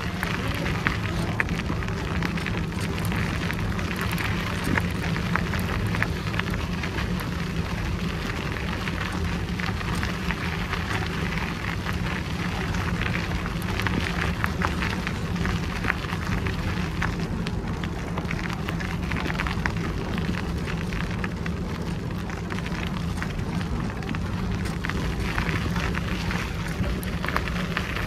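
Bicycle tyres rolling over a gravel forest track, a steady dense crackle of small clicks, over a constant low rumble of wind on the microphone.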